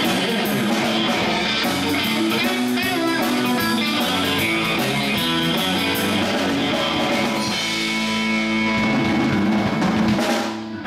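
Live rock band playing amplified electric guitars over a drum kit, with steady cymbal strikes.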